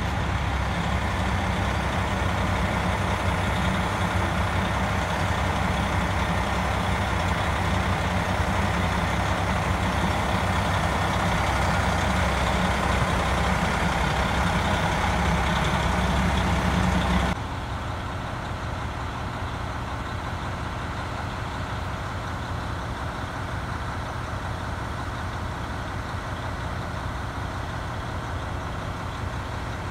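Diesel engines of a KiHa 183-series express railcar idling, a steady low hum. About 17 seconds in it cuts suddenly to a quieter, more distant idle with a faint steady drone.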